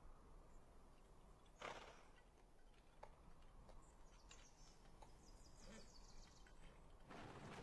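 Quiet outdoor film ambience with a few faint ticks and one short, sharp noise about a second and a half in; near the end the hoofbeats of an approaching horse begin.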